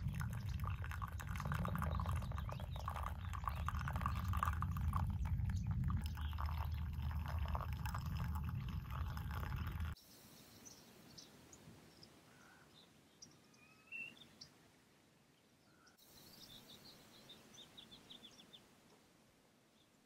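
Hot water poured from a kettle through a pour-over coffee filter into an enamel mug, a steady splashing trickle for about ten seconds. It stops suddenly, leaving quiet outdoor air with scattered faint bird chirps and a single click a few seconds later.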